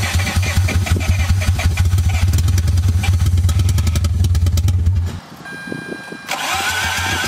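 The starter motor cranks the Mazda RX-8's 13B rotary engine with a fast, pulsing churn, and the engine does not catch. Cranking stops about five seconds in, a steady beep sounds during the short pause, and cranking starts again about a second later.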